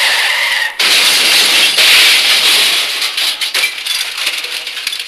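Loud, sudden crashing noise that drops out briefly about a second in and again near two seconds, then thins into rapid clinks and crackles like scattering fragments.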